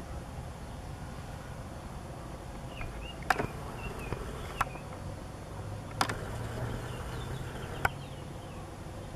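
Quiet outdoor ambience with faint, short high chirps and four sharp clicks spread through it. A low steady hum comes in about halfway through.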